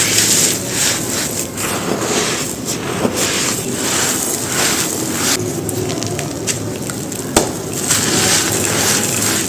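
Soft, crumbly white cylinders being crushed and crumbled on a dry floor: a run of crisp crunches and crackles, with one sharp crack about seven seconds in.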